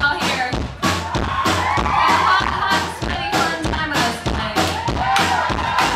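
Live band playing a song: a steady drum beat with electric guitar and keyboard under sung vocals.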